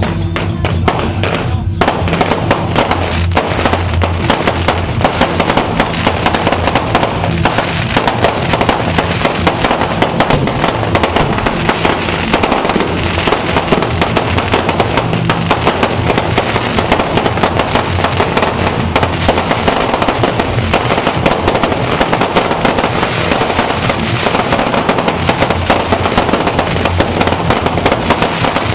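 Fireworks going off in a dense, continuous barrage of rapid bangs and crackles, many per second, without a break. Music with a steady low bass plays underneath, fading through the middle.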